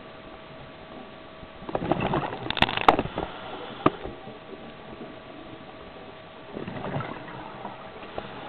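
Scuba diver's regulator exhaling underwater: a rush of bubbles about two seconds in and another near seven seconds, with a few sharp clicks around the first one. A faint steady hum runs underneath.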